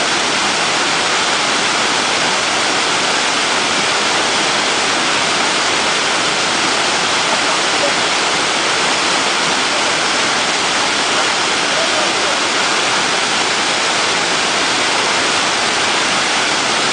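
Waterfall pouring: a steady, loud rush of falling water that does not change.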